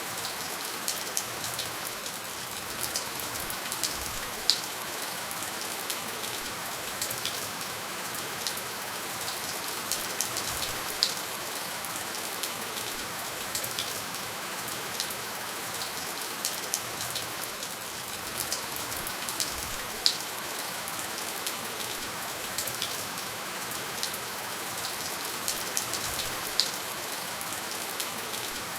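Steady gentle rainfall with no thunder: an even hiss with many individual drops ticking close by, a few of them louder.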